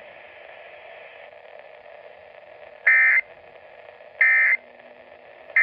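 Emergency weather broadcast through a small portable radio's speaker: faint static hiss, then three short, identical buzzy data bursts about 1.3 seconds apart. These are the Emergency Alert System (SAME) end-of-message tones that close the severe thunderstorm warning.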